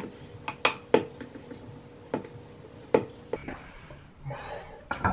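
Wooden rolling pin knocking and rolling on a hard countertop as it presses a softened wax taper candle flat: four sharp knocks with a few lighter clicks, then a short rustle of handling near the end.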